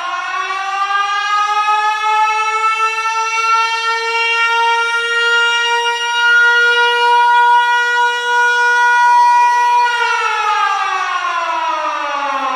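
Air-raid siren sound effect played through the stage speakers: it winds up in pitch over the first couple of seconds, holds a steady wail, then winds down near the end.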